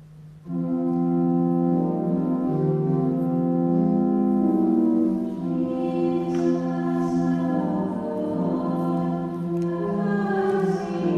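Church music of held chords that change every second or so, coming in loudly about half a second in over a faint low held note.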